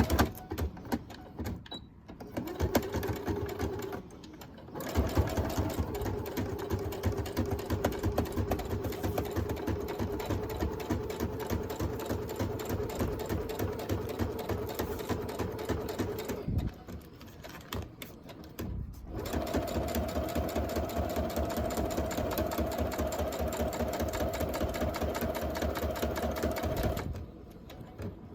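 Electric sewing machine stitching faux leather: a steady motor hum with the needle's rapid ticking. It runs in three stretches with short pauses between, the hum higher in the last stretch.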